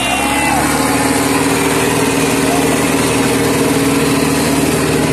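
Diesel engines of a Swaraj 963 FE and a Sonalika 750 tractor running steadily under load as the two tractors, chained back to back, pull against each other in a tug of war.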